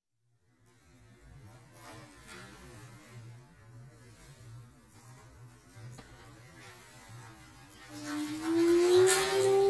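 Hot water flung out into air at minus 26 degrees and flashing into vapour. A faint steady hum and light rustle run through most of it. Near the end come a loud rush of hiss and a long rising tone.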